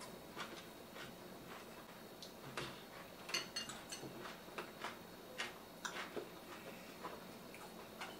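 Chewing and small mouth clicks of people eating, irregular and fairly quiet, with a denser run of clicks a little over three seconds in.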